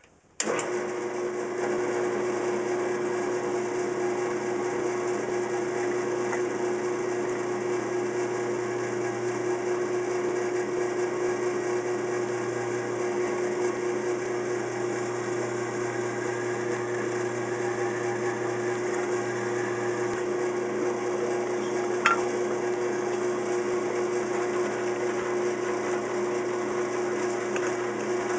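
A vintage 1950s Rockwell Delta drill press switches on just after the start and runs steadily with an even hum while drilling mounting holes in a thin metal light-socket bracket. One sharp click comes about three-quarters of the way through.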